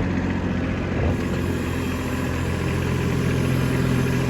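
Kubota B2601 compact tractor's three-cylinder diesel engine running steadily under load while it drags the rear blade through snow, with a small knock about a second in.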